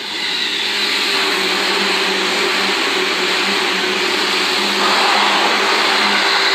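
Seibu Railway electric commuter train passing close at speed: a loud, steady rushing of wheels on rails with a low hum running under it. It swells over the first second as the cars come alongside, then holds.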